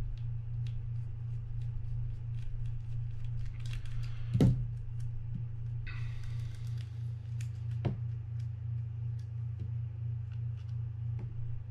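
Small screws being backed out of a fishing reel's side cover with a mini screwdriver and handled loose: faint scattered clicks and scrapes over a steady low hum, with one louder knock about four seconds in and a short rustle around six seconds.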